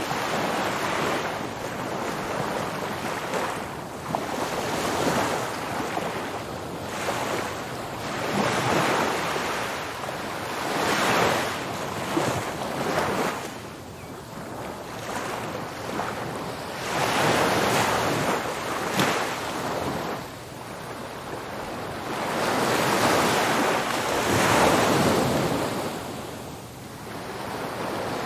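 Ocean waves breaking on a beach, the surf swelling and washing back every few seconds, with wind on the microphone.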